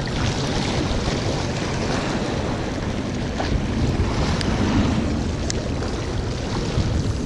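Wind rumbling on the microphone over small waves washing against the boulders of a rock jetty.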